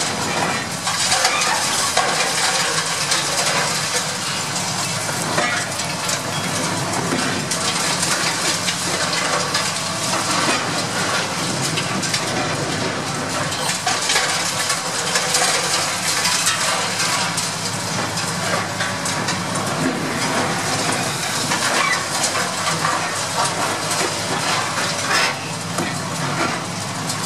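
High-reach demolition excavator crushing the concrete wall of a silo: a steady run of crunching, clattering rubble and falling debris over the low, steady sound of the machine's diesel engine.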